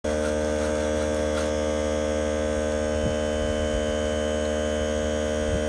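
Steady electrical hum, several even tones held without change.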